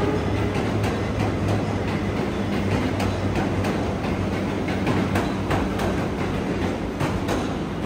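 R62A subway cars rolling past on the track under tow, a steady low rumble with a hum, and wheels clicking sharply many times over rail joints.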